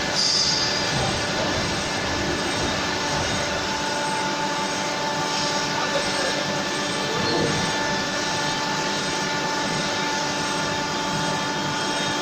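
Crankshaft grinding machine running steadily as its grinding wheel works a six-cylinder engine crankshaft. It makes a constant mechanical whine of several steady tones over an even hiss.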